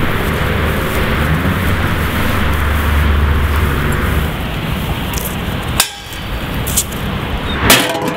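Steady low outdoor rumble of distant traffic, then near the end a sharp impact with a ringing clink as a thrown glass bottle strikes a tin can on a post.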